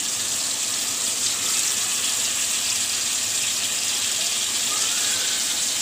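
Marinated chicken leg pieces sizzling steadily in hot oil in a karahi, a constant high hiss of shallow frying.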